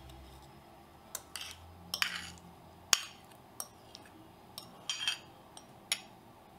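Metal spoon clinking and scraping against a glass bowl and metal plate while scooping out a soft egg mixture: a scattered series of light taps with two short scrapes, the sharpest clink about three seconds in.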